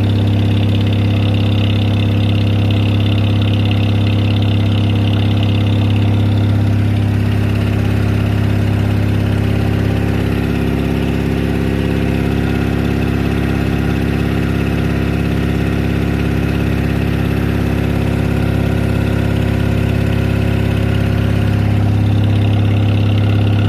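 Motorboat engine running steadily under way, a constant low hum that eases slightly about ten seconds in and picks up again near the end.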